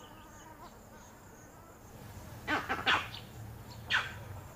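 Vervet monkeys giving alarm calls: a quick cluster of sharp calls about two and a half seconds in, and another near the end. It is the alarm they raise on spotting leopards, meant to drive them off.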